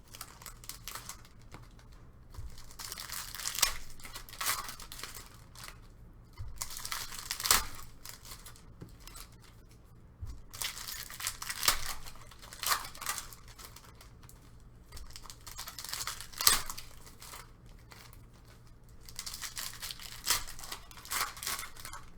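Trading card pack wrappers being torn open and crinkled, in repeated crackling bursts every second or two.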